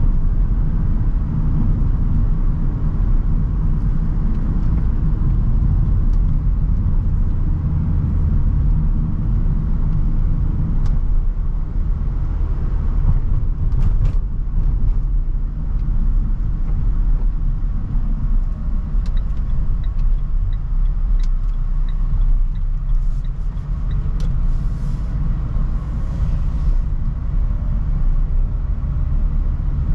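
Renault Trafic van driving along the road: a steady low rumble of engine and tyre noise, with a few faint clicks in the second half.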